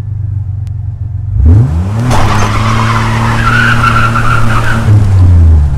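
Chevy S-10 pickup engine idling, then revving up as the clutch is dropped about a second and a half in, with the rear tyres spinning and squealing for about three seconds before the revs fall away near the end.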